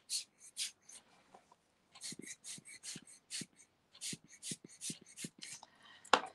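A thin tool dabbing and scraping on paper in short, irregular scratchy strokes, several a second. Soft taps join in from about two seconds in, and a sharper click comes near the end.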